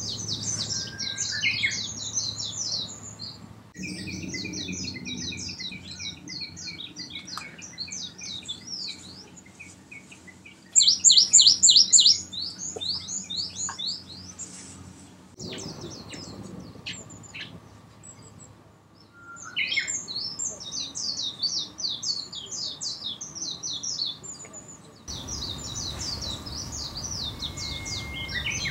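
Songbirds singing, a busy mix of quick, high chirps and trills, with a loud run of rapidly repeated notes about eleven seconds in.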